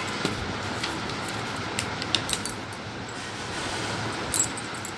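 Paper pages of a children's picture book being handled: a few brief rustles and light clicks, the strongest about four and a half seconds in, over a steady low hiss.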